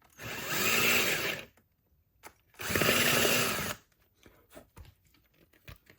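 Power drill running in two short bursts of about a second each, drilling a hole through a car mirror cap.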